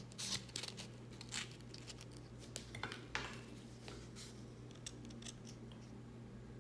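Faint, scattered scratches and rustles of glitter EVA craft foam being handled and pressed by hands as a strip is wrapped around a bow, over a low steady hum.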